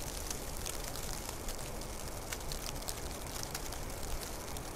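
Snowfall ambience: many small, irregular ticks of snow landing over a steady low rumble.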